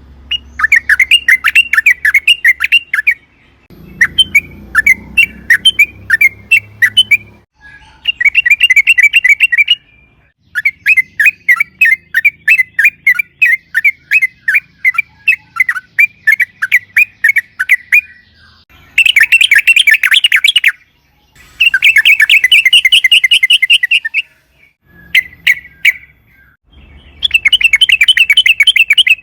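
Yellow-vented bulbul (trucukan) singing long, rapid chattering phrases of quick repeated notes, each phrase a couple of seconds long with brief pauses in between.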